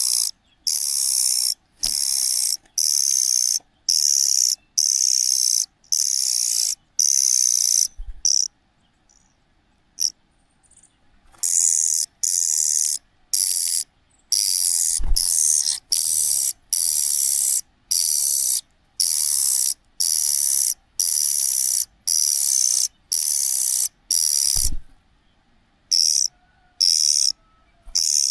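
Cuckoo chick giving its high, hissing begging call over and over, in bursts of about a second, roughly one a second, with two short pauses. A few faint low thumps.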